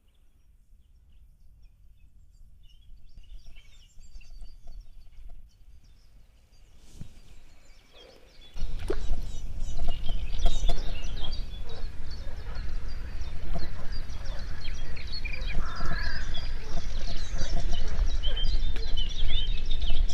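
Wild birds chirping and singing throughout. About eight seconds in, a loud, uneven low rumble comes in suddenly under the birdsong.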